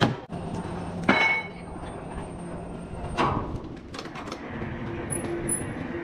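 Sawmill equipment clanking: three sharp metal strikes, one ringing briefly, with lighter knocks over a steady machine hum, and two short high beeps near the end.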